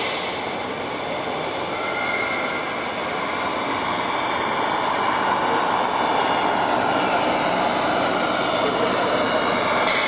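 A steady mechanical running noise with faint whining tones, growing slowly louder.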